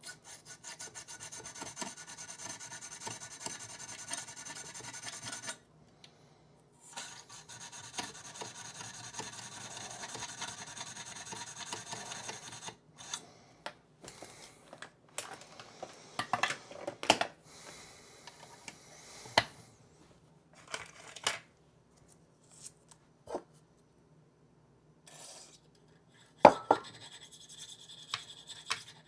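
Aerosol electronics cleaner-lubricant sprayed into a potentiometer in two steady hissing bursts of several seconds each, followed by scattered small clicks and knocks as the pots are handled.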